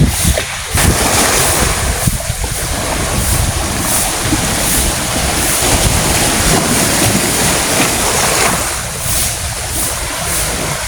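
Wind buffeting the microphone: a loud, steady rushing with gusty low rumble.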